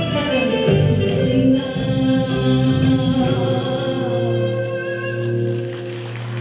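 A Korean fusion gugak ensemble plays with a woman singing over violin, haegeum, gayageum and flute. After a few changing notes it settles into a long held final chord that eases slightly toward the end.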